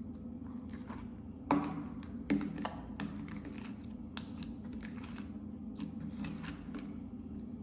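Clear slime being worked by hand, giving scattered sticky clicks and pops, with two louder snaps about a second and a half and two seconds in, over a steady low hum.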